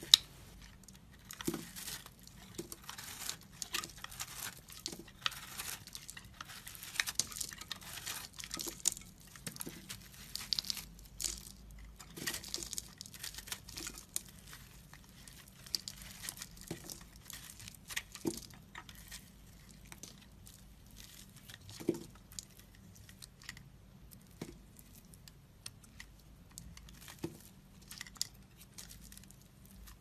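A metal blade carving into dry, crumbly soap: irregular crisp scrapes and crunches as flakes break away, coming thick and fast for the first half, then sparser.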